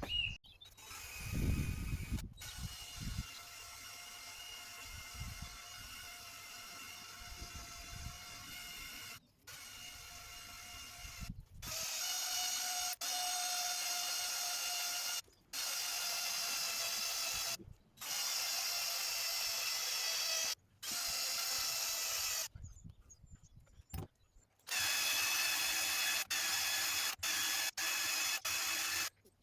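Electric polishing machine running with a steady whine, heard in a run of short stretches that cut off abruptly; louder from about halfway through.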